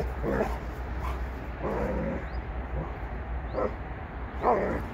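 Kangal shepherd dogs play-fighting, giving about five short barks and yips, one a little longer near the middle. A steady low hum runs underneath.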